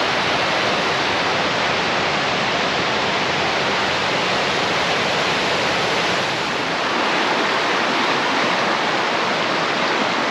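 Fast-flowing river water rushing over rocks, a loud, steady and unbroken sound.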